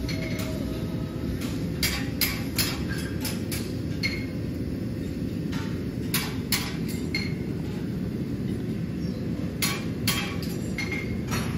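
Farrier's hammer striking steel, ringing sharply in short runs of three or four blows several seconds apart, over a steady low rumble.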